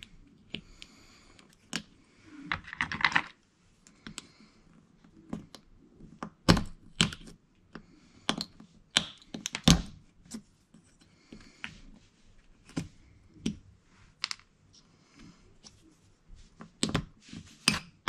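Small plastic and metal parts of a GM seat belt buckle clicking and tapping as it is pried apart with a small screwdriver. The clicks come irregularly, a few sharper ones about a third and halfway through, and a quick run of them near the end.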